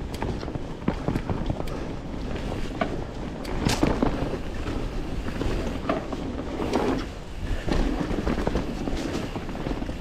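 Mountain bike riding over a dirt trail: tyres rolling and crunching, with frequent sharp rattles and knocks from the bike and a low wind rumble on the microphone.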